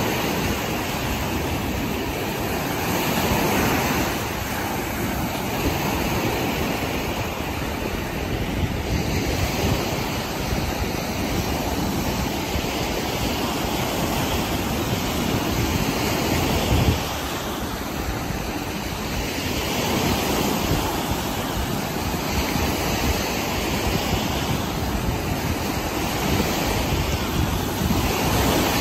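Small Lake Erie waves breaking and washing up onto a sand-and-pebble beach: a steady surf hiss that swells and eases every few seconds.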